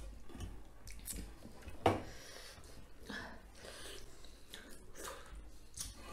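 People eating rice and fish curry by hand: chewing and the soft squish of fingers mixing wet rice on metal plates, with scattered small clicks and one sharper click about two seconds in.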